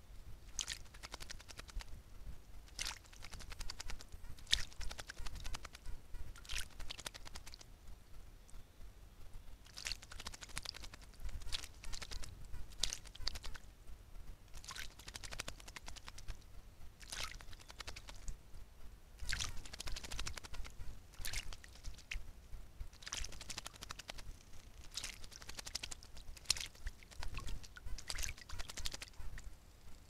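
A thrush bathing in a shallow puddle, splashing the water with its wings in repeated short bursts every second or two.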